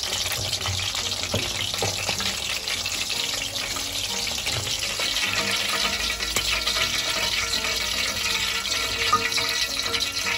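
A whole chicken deep-frying in hot oil: a steady, dense sizzle with fine crackling throughout, while the wire frying basket holding the chicken is lifted out of the pot.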